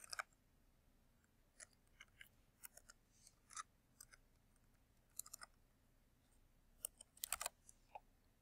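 Faint, irregular clicks of computer keyboard keys being typed, in short scattered runs, with the busiest run about seven seconds in.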